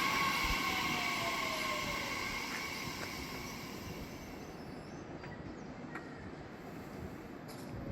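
Electric commuter train moving away. Its steady motor whine and rail noise fade over the first few seconds, and one tone falls in pitch as it goes, leaving only faint background noise.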